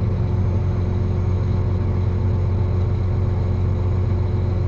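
Farm tractor's diesel engine running steadily at a constant speed.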